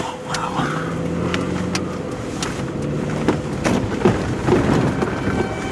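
Vehicle driving, with steady road and engine noise, a low hum in the first couple of seconds and scattered sharp ticks.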